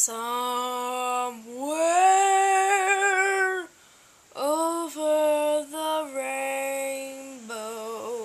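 A child singing alone with no accompaniment, in long held notes with a wavering vibrato, with a short break about halfway through.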